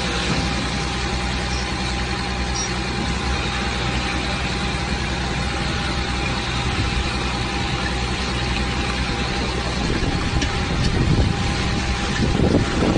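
Diesel engine of a tipper truck running steadily while its body is tipped, with a steady whine over the engine. In the last couple of seconds the sound grows louder and rougher.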